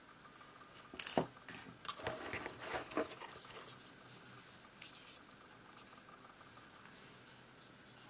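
Hands handling small items: sharp clicks and rustling as a USB cable is set down and the plastic earbud charging case is picked up, busiest about a second in and dying away after about three seconds, then a few soft taps.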